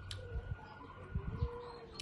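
Close-up chewing and mouth sounds with a few soft low thumps, and a dove cooing in the background.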